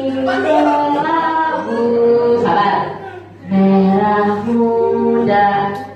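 Voices singing a song together without instruments, in long held notes broken into phrases by short pauses.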